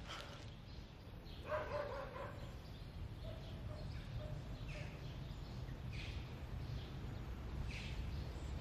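Faint background ambience: a steady low rumble, with a distant animal call about a second and a half in and a few short, faint chirps afterwards.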